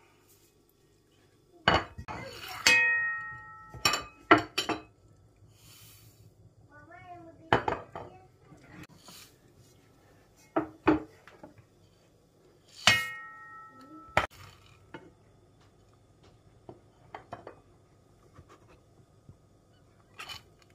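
Bowls, plates and spoons knocking and clinking against a non-stick frying pan as seeds, nuts and dried fruit are tipped onto the oats. It comes as a scattered series of sharp knocks, two of which ring on briefly like struck crockery.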